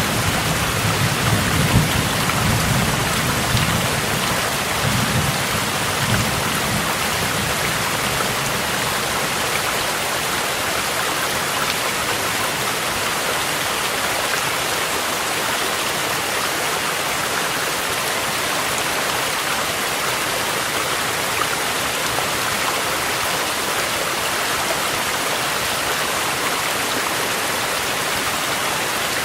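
A mountain stream mixed with steady rain makes an even rushing hiss. A low thunder rumble dies away over the first few seconds.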